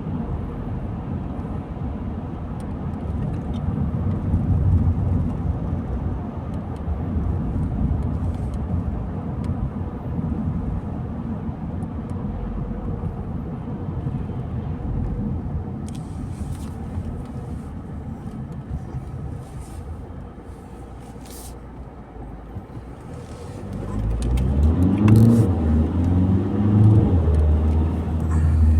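A car driving on a road: steady engine and tyre rumble. Near the end the engine grows louder and its pitch rises in two pulls as it accelerates.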